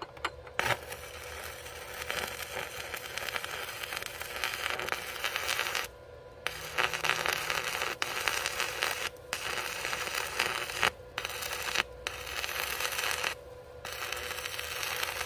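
Stick arc welding with a Power Fist 110 inverter arc welder: the arc crackles steadily in several runs, broken by short pauses where the arc stops.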